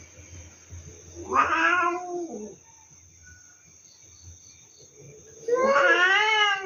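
Cats in a standoff, yowling: two long, wavering caterwauls, one about a second in and another near the end. This is the threat yowling of cats squaring off over territory.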